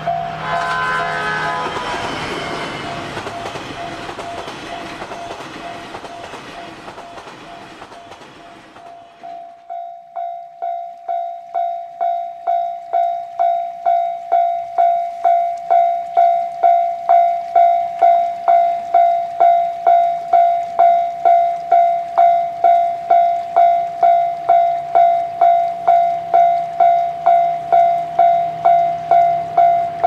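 Seven Stars in Kyushu cruise train passing close by behind its diesel locomotive and fading away into the distance, with a brief horn-like tone as it goes by. Then, after a sudden change about a third of the way in, a Japanese railway level-crossing warning bell rings at about one and a half strikes a second and grows louder, with a faint low engine hum of the approaching train near the end.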